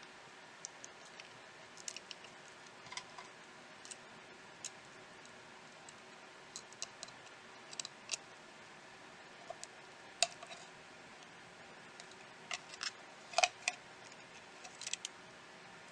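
Scattered small clicks and taps of hands and small repair tools working on a smartphone's parts, over a steady faint hiss. The clicks come irregularly, with a louder flurry of them near the end.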